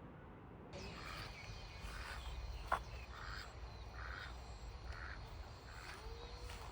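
Duck quacking in short calls about once a second, with one sharp click a few seconds in.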